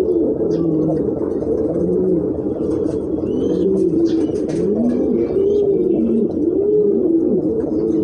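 Many domestic pigeons cooing at once: a continuous chorus of overlapping coos, each rising and falling in pitch.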